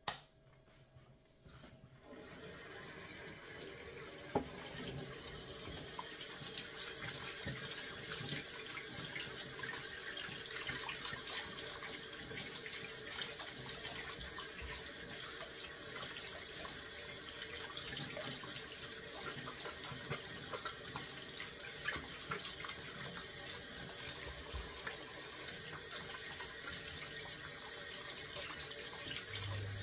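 Kitchen sink tap turned on about two seconds in and running steadily into the sink, with a few light knocks of things being handled under it.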